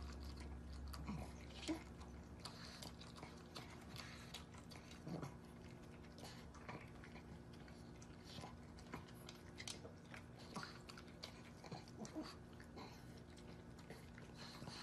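Pug eating from its food bowl: faint, irregular chewing with many small clicks, one a little louder about two seconds in.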